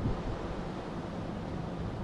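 River water flowing: a steady, low rushing.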